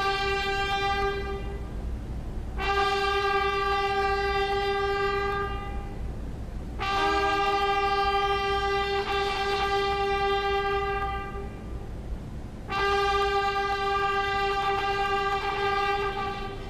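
Ceremonial fanfare trumpets sounding long held notes on the same pitch, announcing the President's arrival. A first note ends about two seconds in, and three more follow, each lasting several seconds.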